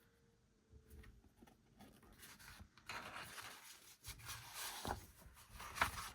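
Paper and plastic packaging rustling as album contents are handled and pulled out, with a few light clicks and taps. It gets louder about halfway through.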